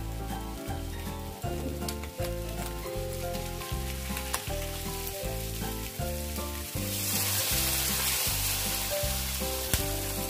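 Beef ribs and onions sizzling in a wok, the sizzle swelling into a louder hiss about two-thirds in as beef broth goes into the hot pan. Background music with a steady bass beat plays under it.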